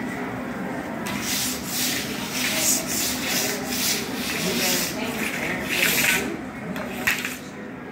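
Metal spatula scraping across a steel teppanyaki griddle in repeated short strokes, about two a second, starting about a second in.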